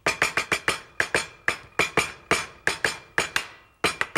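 Chinese cleaver pounding pork chop slices on a wooden cutting board to tenderize them, a rapid run of sharp chops about five a second, each with a short metallic ring. There is a brief pause shortly before the end.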